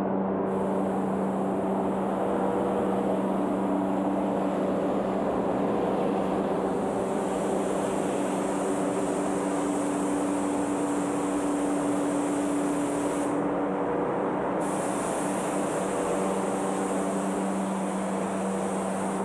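Paint spray gun hissing steadily as it sprays black paint. The hiss stops for about a second about two-thirds of the way through as the trigger is let off, then starts again, over a steady low hum.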